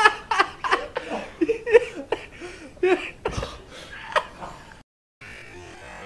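A man laughing in short, breathy bursts at normal speed, the outtake laughter later slowed down to make a zombie sound. The laughter dies away after about four seconds, with a low thump a little past three seconds, then the sound cuts out briefly.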